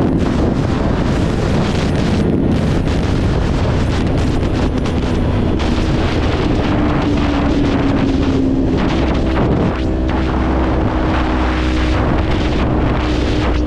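Kawasaki sport motorcycle riding at highway speed, its engine note running under heavy wind noise on the helmet microphone. The engine pitch shifts after a brief dip in loudness about ten seconds in.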